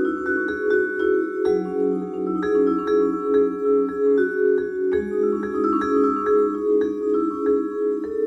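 Musser vibraphone played with four mallets: low sustained chords ring with a steady wavering pulse while higher single notes are struck over them.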